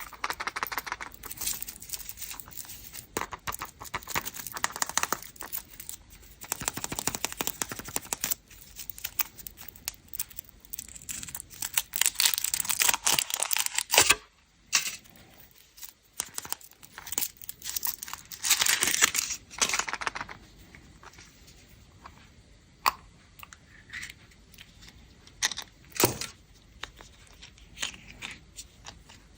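Foil wrapper of a Kinder Surprise chocolate egg crinkling and tearing as it is unwrapped by hand, in repeated runs with a few sharp clicks between them.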